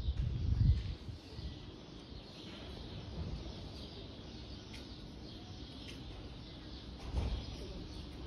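Quiet outdoor street ambience, with low rumbling gusts of wind buffeting the microphone: a strong one about half a second in and a shorter one about seven seconds in.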